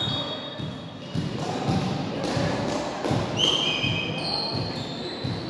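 A volleyball bounced repeatedly on a wooden gym floor, a thud about every half second or so, with a few short high squeaks partway through.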